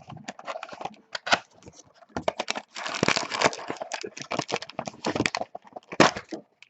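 Paper and foil packaging of a trading-card box being handled and torn open by hand: a quick string of crackles, crinkles and rips.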